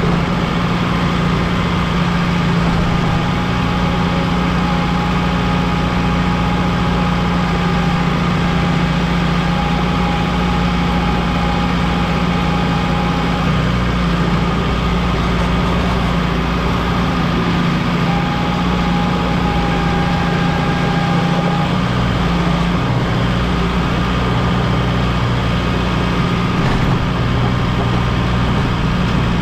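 Kubota M6060 tractor's diesel engine running steadily, with a steady higher whine that comes in twice for several seconds.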